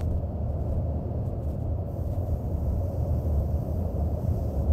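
Steady low rumble of engine and airflow noise inside an aerial refueling tanker's boom operator station in flight.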